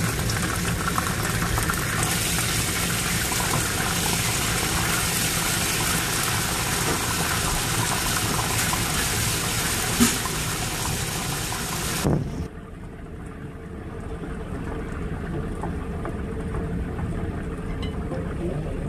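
Chopped garlic sizzling loudly in hot oil in a nonstick wok as it is stirred with a wooden spatula, with one sharp knock of the spatula about ten seconds in. A little past twelve seconds the loud sizzle cuts off suddenly, leaving a much quieter hiss with a faint steady hum.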